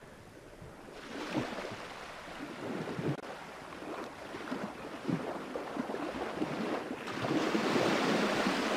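Wind and sea noise on a sailing ship's deck: a steady rushing that builds gradually and is loudest near the end.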